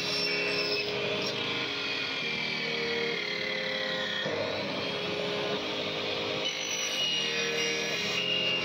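Electric cut-off saw running steadily, mixed with background music whose chords change every half second or so.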